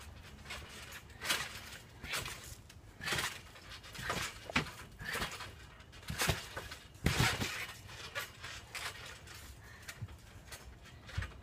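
Backyard trampoline being jumped on by two people: short, uneven bursts of spring creaking and mat thumping, about one every second.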